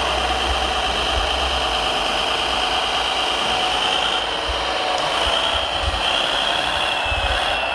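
Radio-controlled construction models working: a steady high whine from their electric drive motors and hydraulic pump, wavering in pitch a little near the end, over low rumbling.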